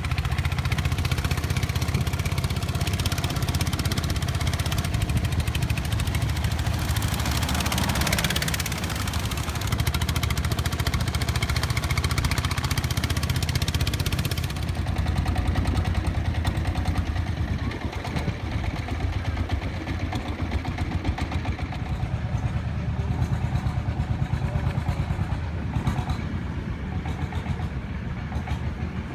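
Motorised wooden longboat's engine running under way, a steady low pulsing chug, with rushing water and wind over the top; the rushing hiss drops away about halfway through, leaving mostly the engine.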